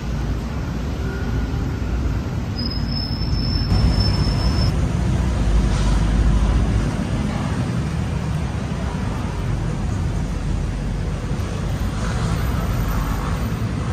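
City street traffic: a steady rumble of passing cars and buses. A high, thin steady tone sounds for about two seconds a few seconds in.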